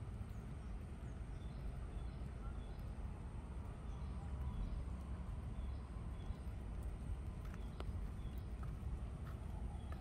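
Birds chirping faintly in a quick regular series of short high notes over a steady low rumble, with a few sharp clicks near the end.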